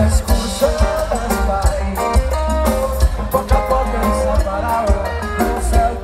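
Live band playing an upbeat Latin-style song, with a strong bass line, drums and a melody over the top, heard from within the crowd.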